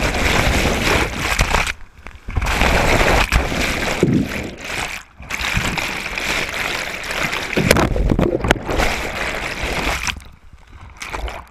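River whitewater rushing and splashing over an upside-down kayak, with the microphone going under the water and back up. The rushing noise cuts out about two seconds in and again briefly about five seconds in, then falls away near the end.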